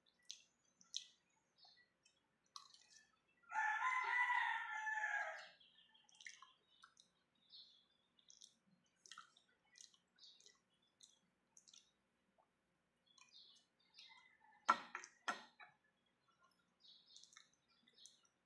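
Quiet eating sounds: soft wet clicks of chewing and a metal spoon, with two sharp clinks of the spoon against a ceramic bowl about fifteen seconds in. About four seconds in, a loud pitched call lasting about two seconds stands out over them, falling slightly at its end.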